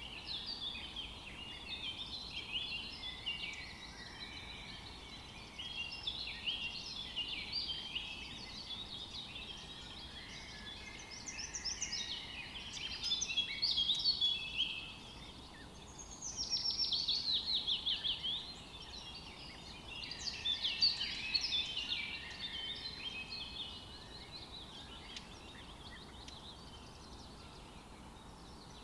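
Several songbirds chirping and singing at once, with a fast trill of rapidly repeated notes falling in pitch a little past halfway. The singing thins out over the last few seconds.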